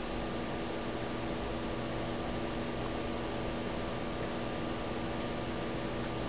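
Steady electrical hum with an even hiss beneath it and no distinct events: room tone.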